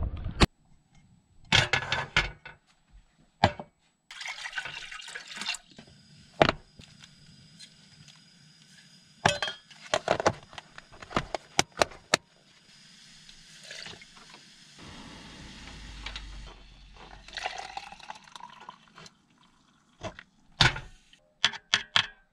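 Clicks and knocks of a plastic food tub, a metal mug and utensils being handled beside a portable gas stove, with a stretch of water sound from the pot in the middle part.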